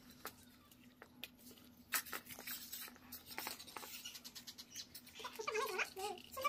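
Faint, scattered clicks and small cracks of crisp puri shells being broken open by hand and stuffed with potato filling. A brief wavering pitched sound comes near the end.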